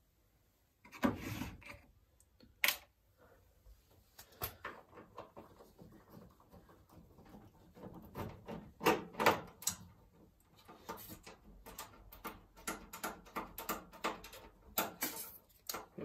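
Irregular clicks, knocks and rattles of a screwdriver working out the screws at the bottom of a commercial washing machine's front panel, with a sharp click about three seconds in. Near the end a polystyrene packing piece is pulled out from the base.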